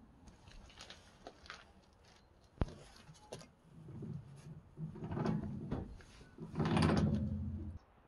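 Scraping and rubbing handling sounds on the wood chipper's steel cutter disc and housing as it is worked by hand, with a sharp knock about two and a half seconds in and two louder scraping stretches in the second half. The chipper is not running.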